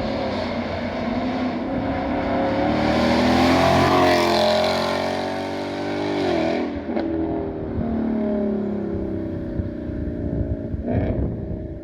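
2019 Mustang GT's 5.0-litre V8 through a Roush axle-back exhaust and X-pipe with the resonator deleted, accelerating. The note rises to its loudest about four seconds in, then falls away and settles to a steadier lower drone after a brief break around seven seconds.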